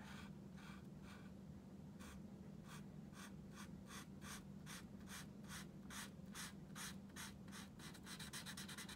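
Felt tip of a Sharpie permanent marker scratching across paper in short back-and-forth strokes as a swatch is coloured in, about three strokes a second and quicker near the end. A faint steady low hum sits underneath.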